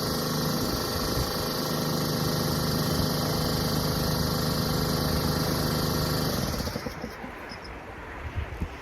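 A motor running steadily with a low hum, then shutting off about six and a half seconds in. A few faint knocks follow near the end.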